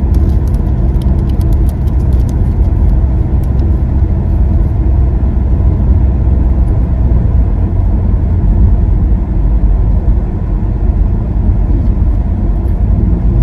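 Steady, loud low rumble of a car heard from inside its cabin. A plastic food wrapper crinkles in the first few seconds.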